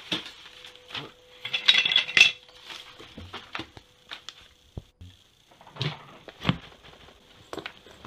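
Rummaging: loose objects knocking, clinking and rustling as someone digs through a wooden box and tosses its contents onto a carpet. The busiest clatter comes about two seconds in, then scattered single knocks.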